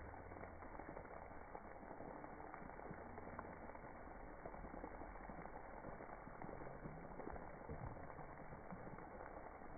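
Spray-park water jets and fountains splashing, slowed down in slow motion into a steady low bubbling wash with scattered small clicks.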